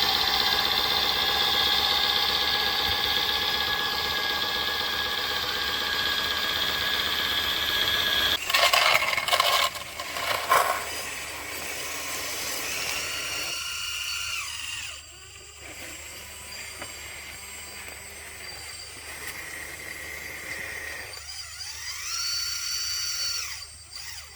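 Electric drive motors of 1/14-scale RC construction machines whining: a steady whine with several pitches for about eight seconds, then after a break a few knocks and quieter whines that rise and fall in pitch as the motors speed up and slow down.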